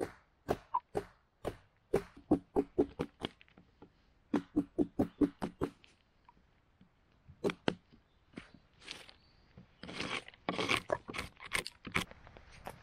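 Wooden mallet striking a steel chisel, knocking in quick runs as the chisel gouges a channel along a split log. Near the end, a couple of seconds of crunching and tearing as wood chips are pried loose.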